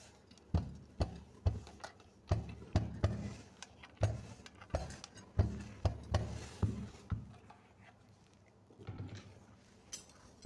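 Electric dry iron pressed down and moved over layered cotton on a table: a run of dull knocks, about two a second, for the first seven seconds, then only a few faint handling sounds near the end.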